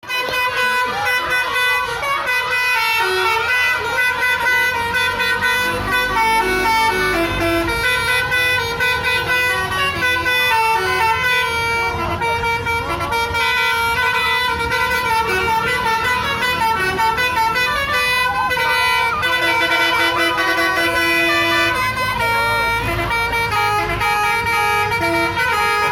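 A bus's telolet horn, a set of musical air horns, playing a continuous tune of short, changing notes, with the bus's engine running underneath.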